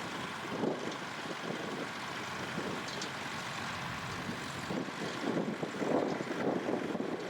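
Tractor engine running steadily under load, its drone rising a little towards the end.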